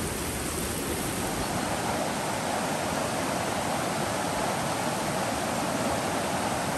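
A swollen, fast-flowing river rushing over rocks, a steady rushing of water.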